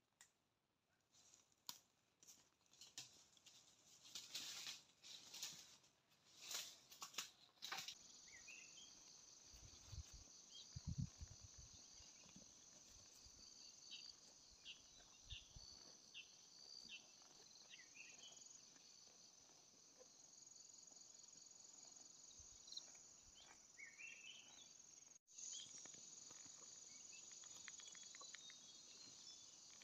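Dry sticks and leaf litter rustling and crackling in uneven bursts for the first several seconds as firewood is handled. Then a steady high insect chorus sets in, with a few short bird chirps.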